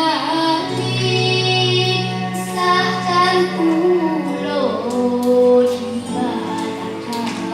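A girl singing a slow melody over instrumental accompaniment, holding long notes.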